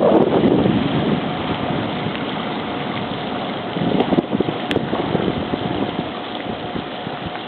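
Wind buffeting the microphone over a steadily running engine; the gusts ease after about the first second, leaving the engine with a faint steady hum.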